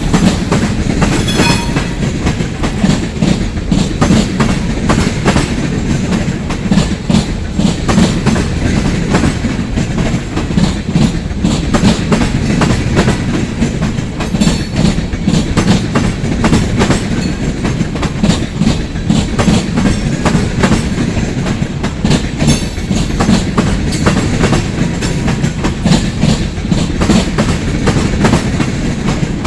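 Freight cars of a long train rolling past, the wheels clicking and clacking over the rail joints over a steady rumble. Faint wheel squeal comes in briefly about a second and a half in.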